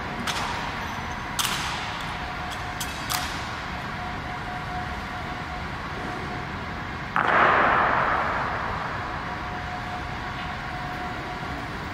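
Honor guards' drill sounds in a large echoing stone hall: a few sharp clicks in the first three seconds, then about seven seconds in, a single loud stamp on the floor that rings on for over a second.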